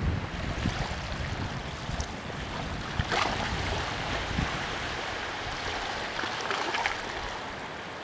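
Shallow sea water lapping steadily over a low, weed-covered rocky shore, with wind rumbling on the microphone.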